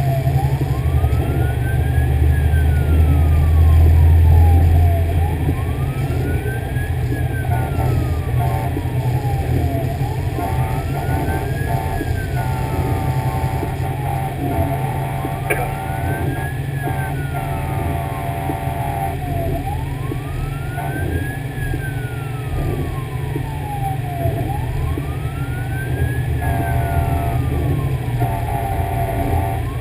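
Fire engine's wail siren rising and falling slowly, about one sweep every five seconds, over the low rumble of the truck's engine, which is louder for the first few seconds.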